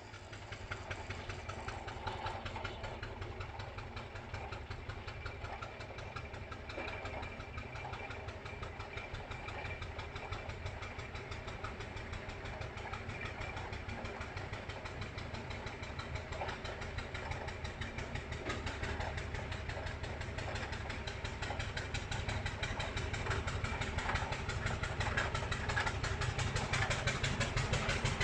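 Fowler T3 steam roller working up a hill, its engine beating in a fast, even rhythm. It grows steadily louder over the second half.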